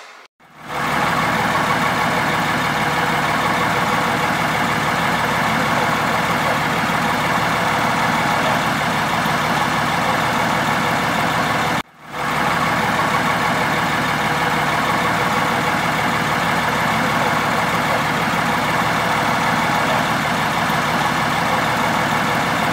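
Diesel engine of a small Planet diesel shunting locomotive running steadily at a low, even speed. The sound cuts out briefly about halfway, then resumes unchanged.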